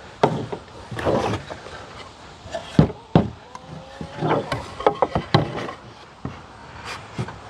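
Finger-jointed wooden side boards of a medium Langstroth hive box knocking and clattering against each other and the tabletop as they are handled: a string of sharp wooden knocks, the loudest about three seconds in, with a quicker run of them shortly after.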